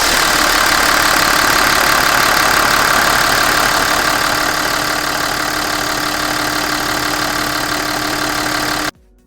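Hyundai Veracruz V6 engine running steadily at idle; the sound cuts off suddenly near the end.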